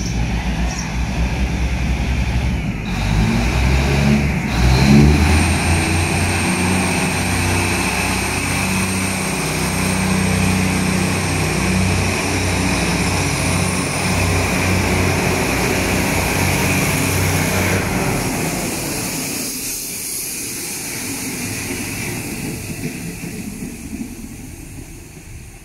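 Diesel multiple-unit express train pulling out of the station. Its diesel engines rev up, rising in pitch about three to five seconds in, then run steadily with a thin high whine as the cars roll past, and the sound fades as the train draws away in the last several seconds.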